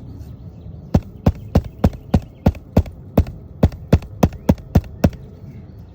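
Roofing hammer striking a roofing nail about fourteen times in quick succession, roughly three blows a second, trying to drive it flush under a lifted asphalt shingle.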